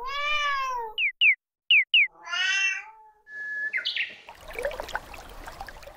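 A cat meowing twice, each a long call falling in pitch, with four short, sharp downward chirps between the meows. Then comes a held whistled note that jumps higher, followed by scattered chirps over a noisy background.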